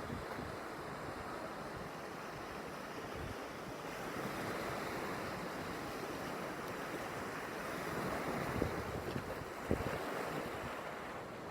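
Ocean surf washing in with wind blowing on the microphone, swelling a little about four seconds in, with a few short low thumps of wind buffeting near the end.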